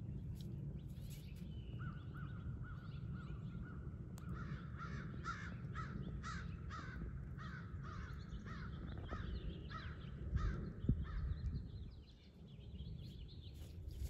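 Birds calling: a long series of short, harsh repeated calls, about two a second, starting about two seconds in and stopping around eleven seconds. A steady low rumble runs underneath.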